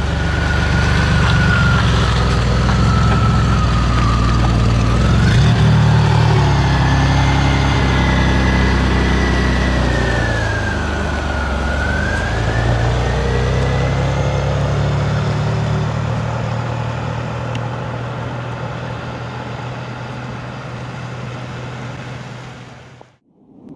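DeLorean DMC-12's PRV V6 pulling away and accelerating, the revs rising, falling back and climbing again, with a high whine that follows the revs. The engine grows fainter as the car drives off, and the sound cuts off abruptly just before the end.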